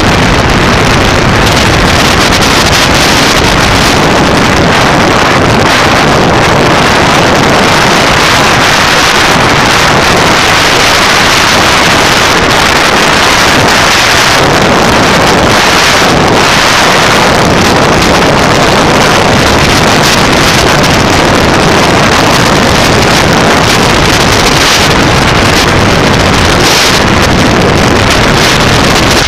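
Loud, steady wind noise on a motorcycle-mounted camera's microphone while riding at road speed, with the motorcycle's engine running underneath.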